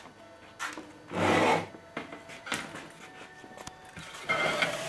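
Handling noise of a sheet of CNC-scored mirror glass on a workbench: scattered clicks and knocks, a loud scraping rustle about a second in, and another scrape near the end as the sheet is moved along the bench.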